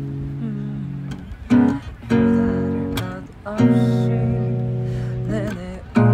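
A man sings a slow song over a nylon-string acoustic guitar. Strummed chords are struck about a second and a half in, at two seconds and near three and a half seconds, and each is left to ring.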